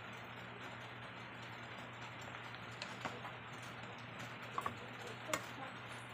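A steady low hum with a few light clicks over it: a quick double click about two-thirds of the way through and a sharper single click near the end.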